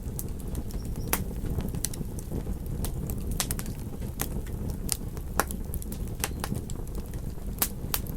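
Wood fire crackling in a fireplace: irregular sharp pops and snaps over a steady low rumble of burning. Two of the pops, one about halfway through and one near the end, are louder than the rest.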